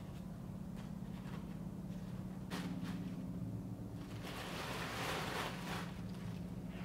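A plastic bag crinkling and rustling as it is handled, starting a little past halfway, over a steady low hum, with a single click a few seconds before.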